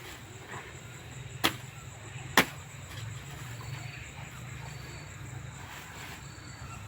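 Two sharp knocks about a second apart, over a low steady hum, with a few faint high chirps.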